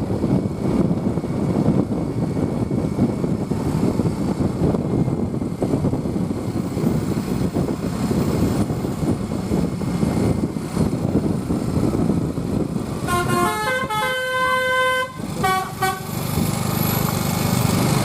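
Loud engine and road rumble, then about 13 seconds in a multi-tone 'telolet' bus horn plays a short tune for about three seconds: a quick run of short notes, one held note, then a few more short notes.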